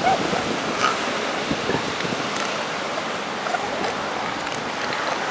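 Steady wash of surf with wind buffeting the microphone, and a faint short animal call about three and a half seconds in.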